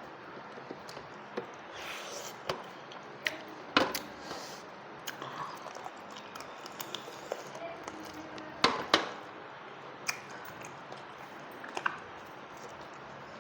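Close-up eating sounds: soft chewing and handling of food, broken by scattered sharp clicks and knocks, the loudest a quick pair about nine seconds in.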